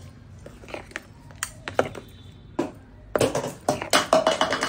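Steel spoon stirring thick coconut chutney in a plastic bowl: scattered light taps and scrapes at first, then a busy run of clattering from about three seconds in.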